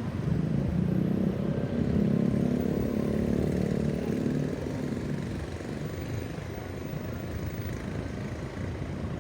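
Road traffic: a motor vehicle's engine running close by, louder for the first few seconds and fading about halfway through.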